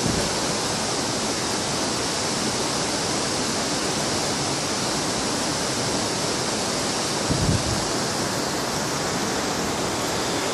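Rushing river: a steady, even noise of fast-flowing water, with a brief low thump about seven seconds in.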